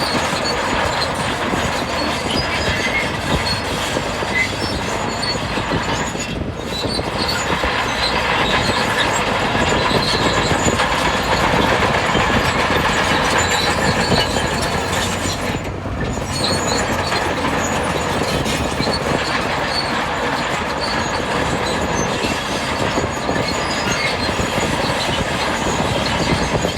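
Bulldozer at work: its engine running steadily under load while its steel crawler tracks clank and squeal, metal on metal. The noise dips briefly twice, about six and sixteen seconds in.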